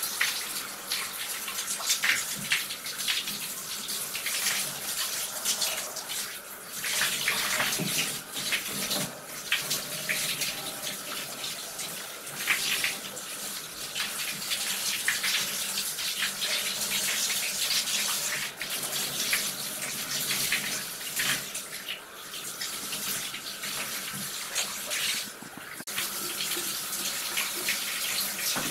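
Handheld shower head spraying water onto clothes and splashing into a bathtub: a continuous hiss of running water that swells and fades as the spray moves.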